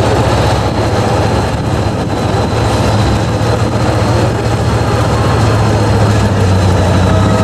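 Six-wheel-drive trial truck's diesel engine running at low, steady revs as the truck crawls over a steep dirt crest, a loud deep drone with little change in pitch.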